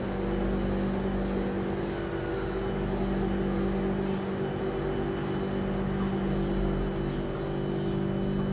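Steady hum inside a Singapore MRT Circle Line train car standing at the platform, the onboard equipment running with several constant tones over a low rumble. A few faint clicks come a little past halfway.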